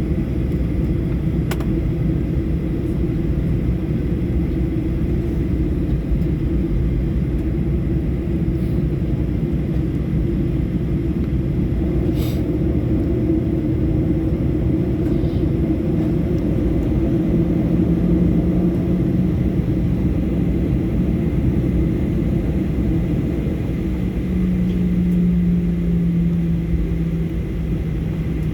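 Steady low rumble of a Boeing 737 airliner's jet engines, with a low steady hum that comes in about two-thirds of the way through.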